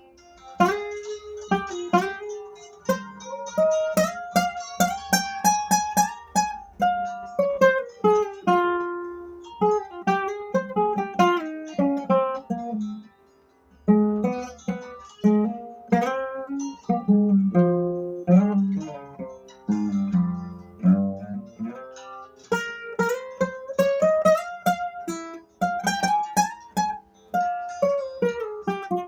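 Acoustic guitar played solo in picado style, fast single-note plucked runs climbing and falling in pitch over low bass notes. The playing pauses briefly about 13 seconds in and stops near the end.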